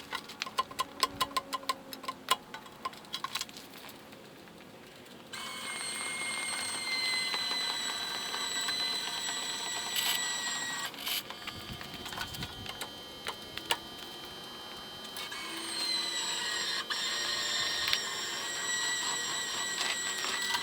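Rapid clicking, then an electric winch motor whining as it pulls the engineless backhoe in, its pitch sagging a little under the load. It stops for a few seconds midway and starts again.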